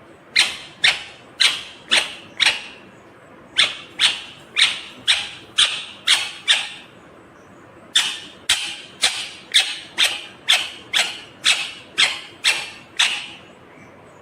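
Green ringneck parrot (rose-ringed parakeet) giving loud, shrill, repeated calls at about two a second, in three runs: about five calls, then about seven, then about eleven.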